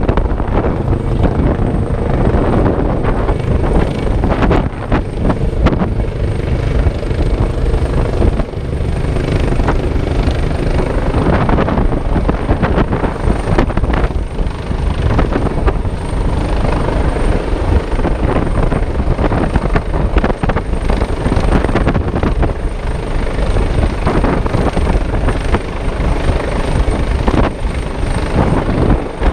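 Helicopter running loudly close by, a dense steady rotor and engine noise with a thin high whine held throughout.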